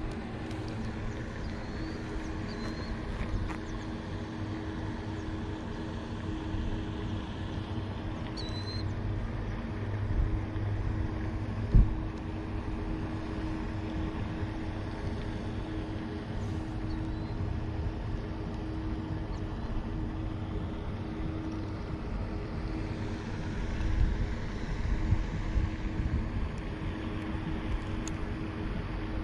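A motor's steady hum at a constant pitch, with a single sharp knock about 12 seconds in.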